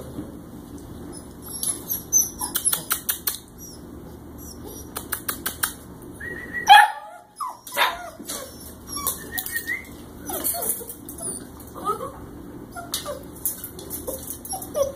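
A litter of puppies yipping and whining, with one louder yelp about seven seconds in. Runs of quick clicking and rattling are heard along with the calls.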